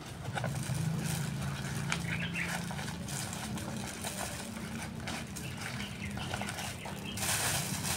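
Cat chewing food, with scattered small clicks and crunches, over a steady low hum; a brief rushing hiss comes about seven seconds in.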